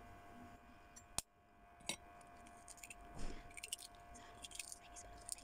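A balut eggshell tapped sharply about a second in and again a moment later, then small crackling clicks as the shell is picked open with the fingers.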